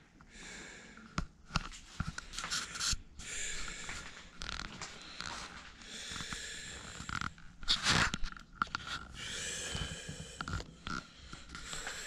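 A person breathing through the nose close to the microphone, each breath a hissy, slightly whistling stretch every second or two. Scattered sharp clicks, and one louder rustling burst about eight seconds in.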